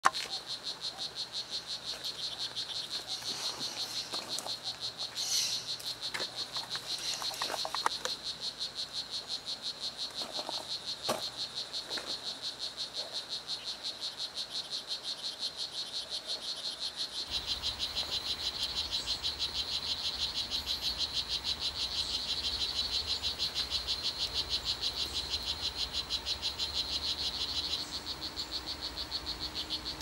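Male strawberry poison-dart frog (Oophaga pumilio, 'blue jeans' morph) giving its advertisement call to attract females: a long, rapid series of high chirps. A few sharp clicks sound in the first half.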